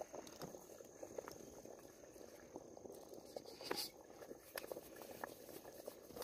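Faint scattered pops and crackles from a pot simmering over an open wood fire, with one sharper click a little past halfway. A thin steady high whine sits behind it.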